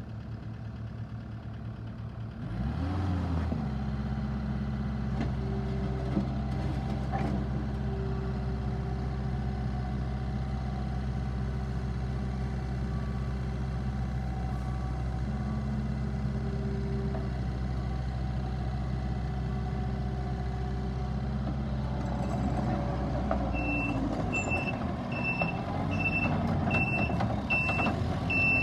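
Takeuchi TL8 compact track loader's diesel engine running steadily, throttled up a couple of seconds in. Near the end the machine begins to move and its reversing alarm beeps about once a second.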